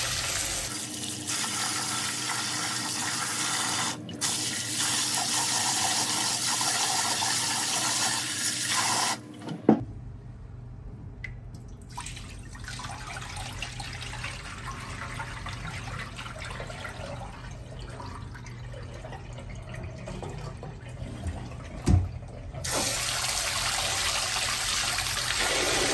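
Kitchen tap running into a large aluminium pot of rice in a stainless steel sink while the rice is rinsed by hand. About ten seconds in the running stops with a knock. The quieter splash of cloudy rinse water being poured off into the sink follows, then another knock, and the tap runs again near the end.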